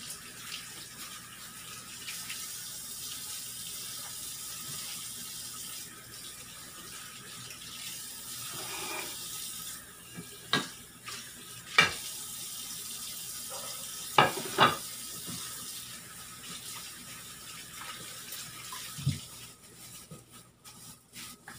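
Tap water running into a sink while squid are rinsed clean by hand. A few sharp knocks come in the middle, and the running water breaks up and thins near the end.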